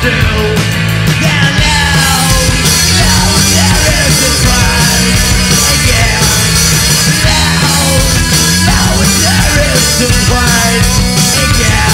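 Psychobilly rock band playing live, with electric guitars and a steady drum beat. A singer shouts into a microphone over the band.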